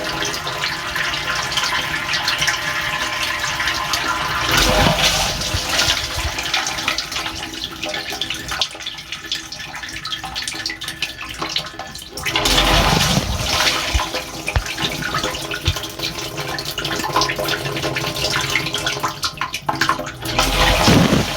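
Water spraying and splashing inside a Samsung dishwasher's tub during its test cycle, picked up through plastic bags sealed around the phone, over a steady hum. The spray surges louder about four and a half seconds in, again about twelve and a half seconds in, and near the end.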